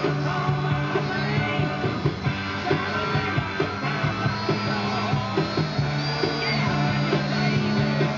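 Rock music with guitars, a steady beat and singing.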